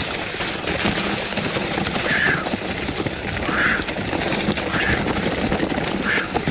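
Mountain bike riding down a rocky, leaf-covered trail: a steady, rough rattle and crunch of tyres over leaves and loose rocks, with the bike rattling under the rider. A short higher-pitched sound recurs about every second and a half.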